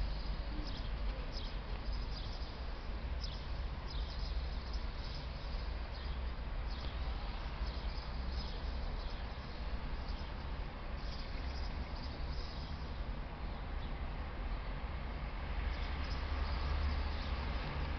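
Outdoor rural ambience: short, high chirps recurring irregularly over a steady low rumble and hiss.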